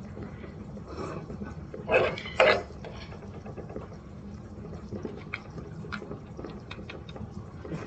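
A spoon scooping thick milk gravy out of a skillet and onto fried chicken, with two louder scrapes about two seconds in and light clinks of utensil on pan and plate after.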